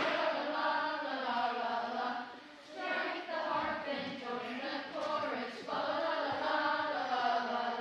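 Group of children singing together as a choir, in long held phrases, with a brief pause for breath about a third of the way through.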